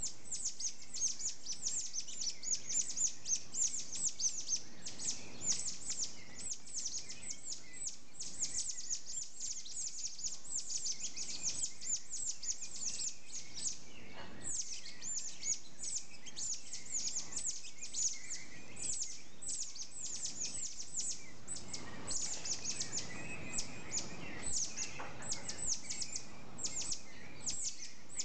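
Red-naped (Geoffroy's) tamarins giving a steady stream of short, high-pitched chirps that fall quickly in pitch, several a second, with a brief lull about halfway through.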